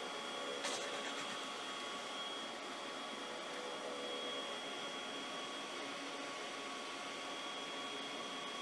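Steady fan-like machine hiss with a thin high-pitched whine running through it, and a single short click near the start.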